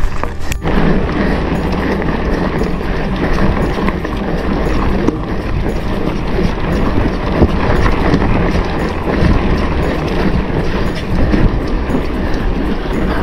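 Mountain bike riding over a dirt track: steady wind buffeting on the action camera's microphone over a rumbling rattle of the tyres and bike, starting abruptly about half a second in.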